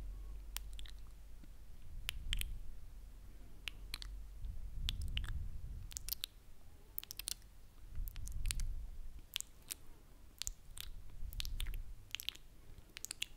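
Close-miked ASMR mouth sounds and kisses: irregular wet lip-smacks and tongue clicks, several a second. Between them, slow breathing on the microphone makes a low rumble that swells and fades.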